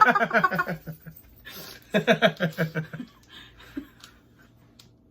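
A person laughing in two bouts of quick, breathy chuckles, then a few faint clicks.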